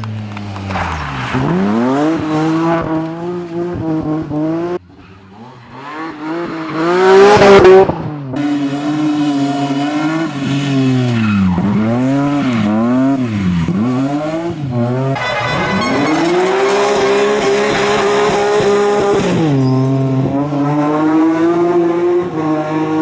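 BMW rally car's engine at full throttle on a stage, its pitch climbing and falling again and again through gear changes and lifts off the throttle. About five seconds in the sound drops sharply, and the car then comes up loudly at rising revs, loudest around seven to eight seconds, before running on through more gear changes.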